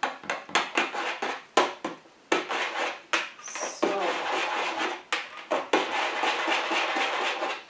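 Spatula knocking and scraping in the stainless-steel mixing bowl of a Monsieur Cuisine kitchen machine, stirring the thick vanilla pudding. First come irregular sharp knocks, then steadier scraping from about four seconds in, with a brief squeak just before.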